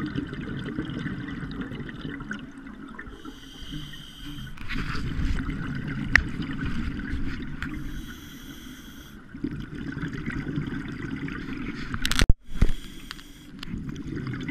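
A scuba diver breathing through a regulator underwater, heard muffled through the camera housing: two inhalations with a hissing whine, and bubbling, gurgling exhalations over a steady low rumble. Two sharp knocks near the end.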